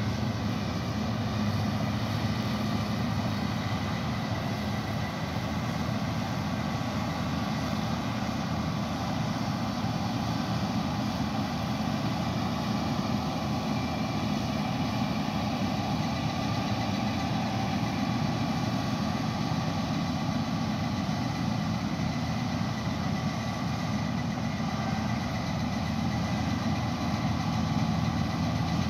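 An 8070 combine harvester running steadily at working speed while harvesting wheat, a constant engine drone with no letup.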